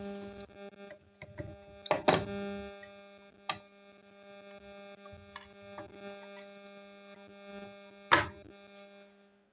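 Sewing machine motor's metal end flange and housing knocking and clicking as they are worked apart by hand, with sharp knocks about two seconds in, near three and a half seconds and about eight seconds in. A steady hum runs underneath.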